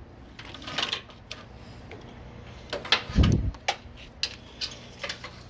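Irregular clicks and knocks of hand tools on metal as a small 7 or 8 mm fastener is worked loose, with one dull thump about three seconds in.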